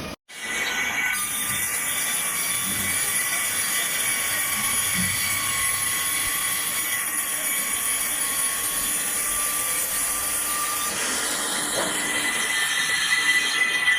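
Sawmill saw cutting through a log: a steady high-pitched squeal made of several tones, shifting slightly about eleven seconds in.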